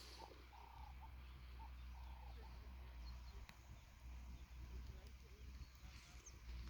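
Near silence: a few faint short bird calls in the first couple of seconds, over a steady low hum.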